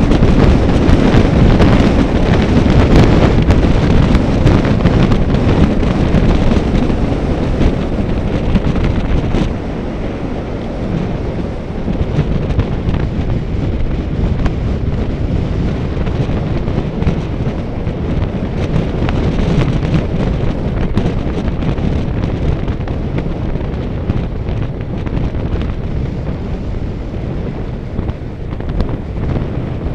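Wind buffeting the microphone, a loud, steady rumble with no distinct tones, heavier for the first nine seconds or so and then easing slightly.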